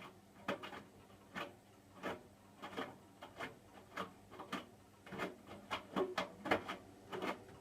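Hotpoint washing machine's drum turning the wet laundry, giving a run of irregular soft knocks and thumps, about one or two a second, over a faint low motor hum. This is the last minute of the cotton cycle, just before the final 600 rpm spin.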